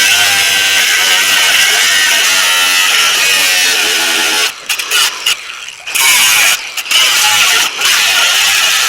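A handheld power cutting tool, a grinder-type cut-off tool, running loud and harsh as it cuts the steel body of a Willys Jeep tub. It stops and restarts a few times about halfway through.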